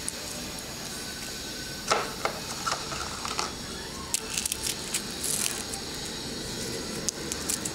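Broken Marie biscuit pieces being placed by hand onto soft ice cream in a plastic-lined tray: scattered light clicks and rustles, over a steady background hiss.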